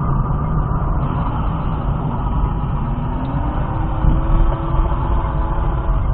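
Steady engine and road noise of a moving car, with an engine note that rises a little about two and a half seconds in and then holds.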